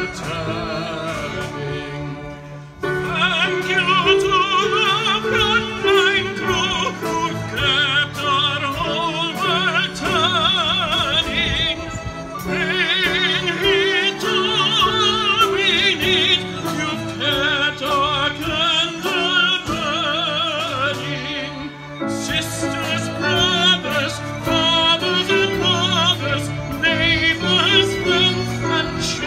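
Live music from a youth string orchestra of violins and cellos, the melody held with strong vibrato, with singing over it. The music dips briefly between phrases about two seconds in and again past the twenty-second mark.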